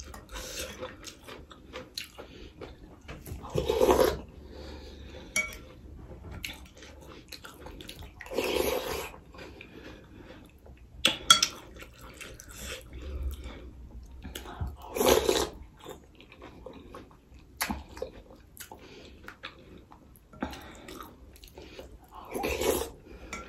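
Metal spoon and fork clinking and scraping in a ceramic soup bowl, with eating sounds from mouthfuls of soup: several louder, half-second slurps a few seconds apart.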